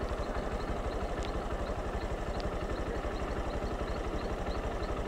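Motorcycle engine idling steadily, an even low pulsing with no revving.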